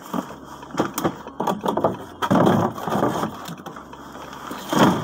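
Plastic wrapping on a mail tray rustling and crinkling as the tray is handled, with a few light knocks; the loudest crinkles come about halfway through and again near the end.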